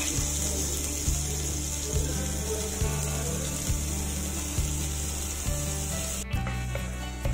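Background music with slow, steady low notes and a soft beat just under once a second, over a faint hiss of butter cubes starting to sizzle in a hot clay pot. The hiss drops away about six seconds in.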